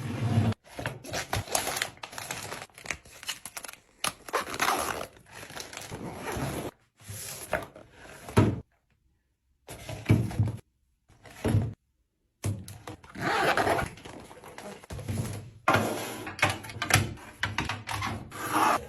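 Food packaging and storage containers being handled while restocking a fridge: thunks of items set down, with tearing and crinkling of packaging. The sounds come in short bursts, cut off abruptly several times.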